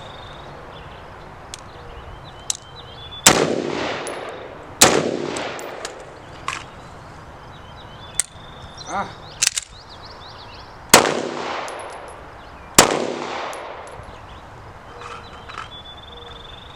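Four gunshots, each ringing out in a long echo: two 5.56 AR-15 rifle shots about a second and a half apart, then, after a few lighter clicks and knocks during the switch of weapons, two pistol shots about two seconds apart.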